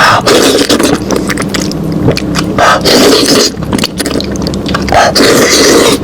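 Loud close-up eating sounds: chewing, biting and tearing cooked lamb meat, in irregular noisy bursts.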